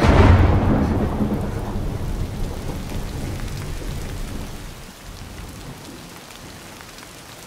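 A thunderclap breaks at the start and rumbles away over about five seconds as heavy rain suddenly pours down. The steady hiss of the downpour carries on after the thunder fades.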